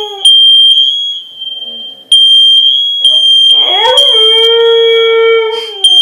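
Fire alarm sounding a steady, loud, high-pitched tone that drops out for about half a second a second and a half in, then resumes. About three and a half seconds in, a Siberian husky howls along with it: one long howl that rises in pitch and then holds steady for about two seconds.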